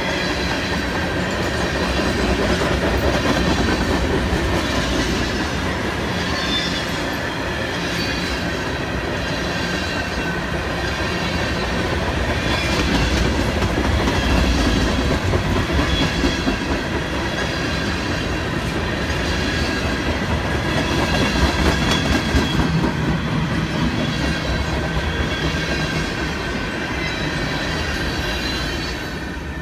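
Freight train tank cars and a covered hopper rolling past, their steel wheels clattering steadily over the rail joints, with a thin high squeal from the running gear.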